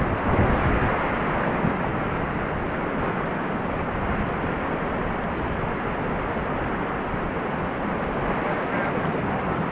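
Whitewater rapids rushing steadily, with a few low thumps in the first two seconds.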